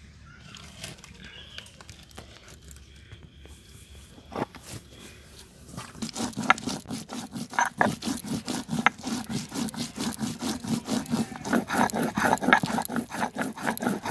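Stone roller grinding dried red chillies on a flat grinding stone (shil-nora): a single knock, then from about six seconds in a steady run of rough scraping, knocking strokes, several a second, as the chillies are crushed to a wet paste.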